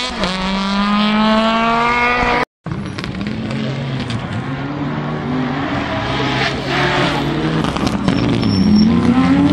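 Rally cars at full throttle: a small red hatchback's engine holds a high, slowly rising note as it passes. After a short break, a Mitsubishi Lancer Evolution's turbocharged four-cylinder revs up and down through gear changes, with a few sharp cracks, and climbs again near the end.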